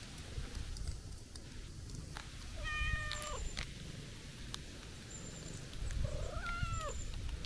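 Calico cat meowing twice: a level call about three seconds in that drops at its end, and a second call near the end that rises and then falls.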